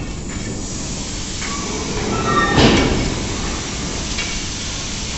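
Steady rushing noise of BOBR coal wagons being unloaded into a track hopper, swelling to a louder rush about two and a half seconds in.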